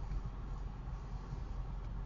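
A 1993 BMW E36 driving, heard as a steady low rumble of engine and road noise with no clear separate knocks.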